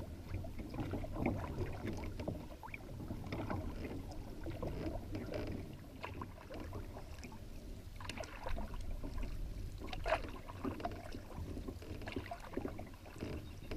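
Canoe being paddled: irregular small splashes and trickles as the paddle dips and water laps against the hull.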